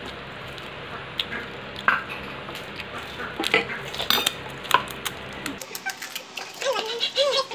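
Clinks, taps and knocks of dishes and utensils being handled while pani puri is readied, as separate sharp clicks scattered a second or so apart.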